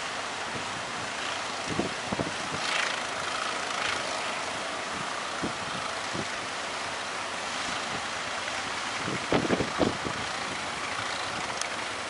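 Strong wind blowing across the microphone over the steady wash of breaking surf, with a few low thumps from gusts about two seconds in and again near ten seconds.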